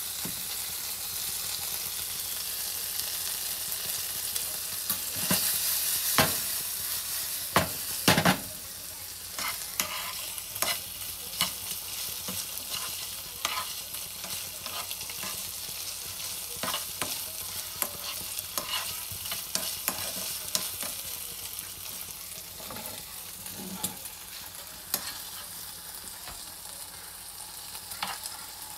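Meatballs sizzling in hot oil in a nonstick frying pan, a steady hiss broken by frequent taps and scrapes of a metal utensil turning them against the pan.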